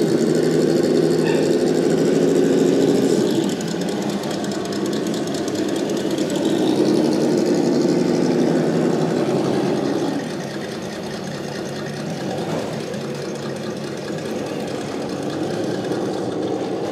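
Radio-controlled scale crawler trucks running as they crawl up log steps: a steady engine-like drone, louder for the first few seconds and again midway, easing off after about ten seconds.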